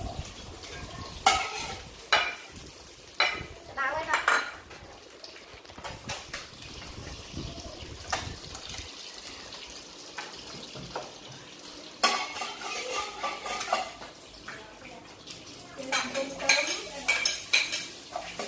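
Metal spatula clattering and scraping against a wok in irregular bursts while stir-frying, over a steady sizzle of beef frying in oil.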